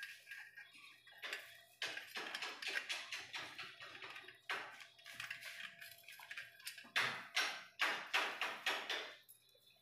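Hand-work handling noise: small metal fittings click and clink against the steel shaft and coil spring of a rolling shutter while plastic bags of parts rustle. The sharpest clatters come in a quick run near the end.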